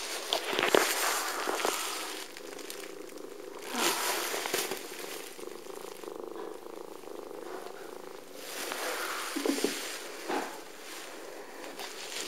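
Long-haired tabby cat purring steadily at close range, with bouts of rustling as her fur rubs against the microphone, the longest in the first two seconds and around nine to ten seconds in.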